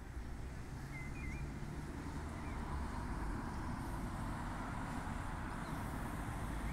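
Road traffic: cars passing on a nearby road, a steady rush that slowly grows louder.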